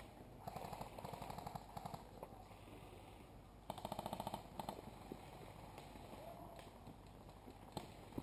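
Faint, distant airsoft guns firing full-auto: a rattle of rapid shots about half a second in that lasts over a second, and another burst around four seconds in that lasts about a second.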